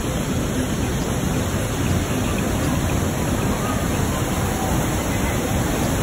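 Rushing water of the Manavgat waterfall: a steady, even rush of noise.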